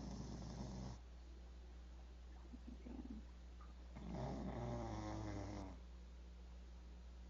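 Pit bull snoring in its sleep: a short, breathy snore right at the start, then a longer, louder snore with a buzzing rattle about four seconds in.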